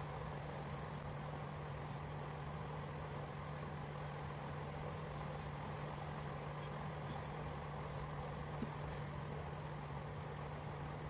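Steady low hum over an even background noise: room tone, with one brief faint click about nine seconds in.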